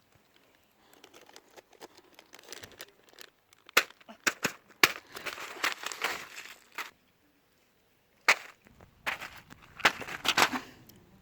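Small plastic fidget toys being picked through and handled: sharp clicks and clacks with stretches of rustling.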